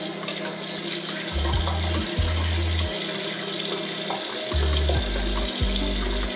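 A bathroom tap running steadily into the sink while warm water is splashed onto the face, under background music with a low bass line.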